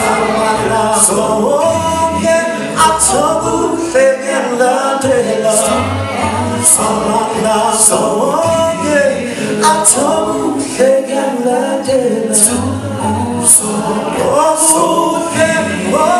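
A six-man male a cappella group singing in close harmony into microphones, with a low bass voice underneath and sharp high accents about once a second.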